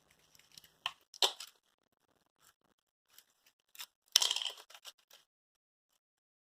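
Sharp clicks and short scrapes of small objects being handled, two strong ones about a second in and the loudest, longer scrape about four seconds in.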